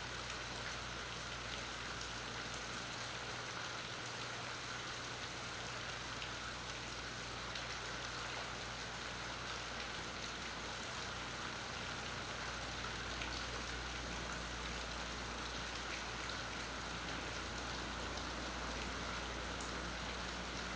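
Steady rain falling, with the odd nearby drop ticking, over a low steady hum.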